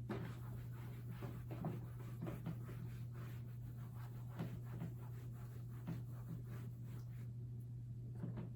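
Handwriting: a run of short, irregular writing strokes, over a steady low hum.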